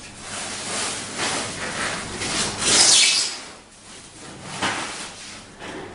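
Plastic wrapping rustling and a foam packing insert rubbing as a plastic-wrapped slit lamp column is worked loose and lifted out of it. The swishes come in a series, loudest about three seconds in.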